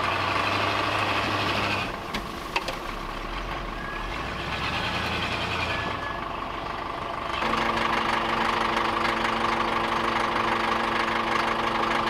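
Engines of a plow truck and an old Caterpillar motor grader running steadily, with a sharp change in sound about two seconds in and again about seven seconds in, and a couple of sharp clicks between two and three seconds.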